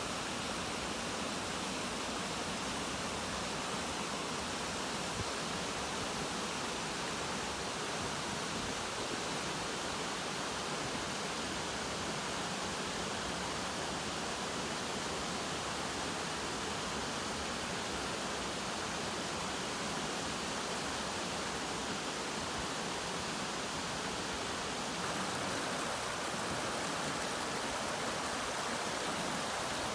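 Grout Creek running high with rain and snow-melt runoff: a steady, full rush of fast-flowing water. The rush grows slightly fuller about 25 seconds in.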